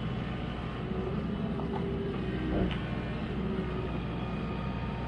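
Excavator's diesel engine running steadily, a low continuous rumble.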